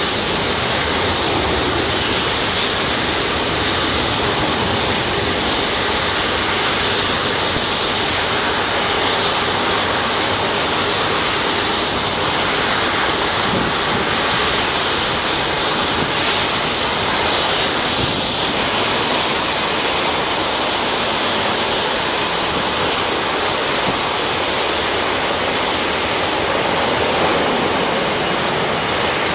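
Airbus A340-600's four Rolls-Royce Trent 500 jet engines running at taxi idle, a steady, even rush of noise without any change in level.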